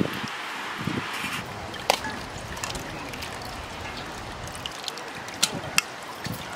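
Soaked tamarind pulp squeezed by hand in a metal bowl, its juice trickling into a pot of water, with a few sharp clicks, two of them close together near the end.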